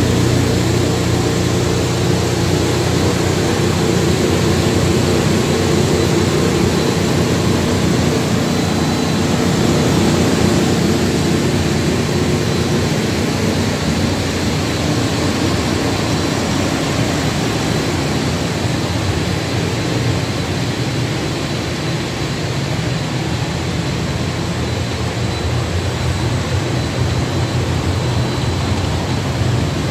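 Breadcrumb processing line machinery running: a steady mechanical hum and whir from the vibrating sieve, conveyors and dryer, with a faint high whine. The deeper hum eases off somewhat in the second half.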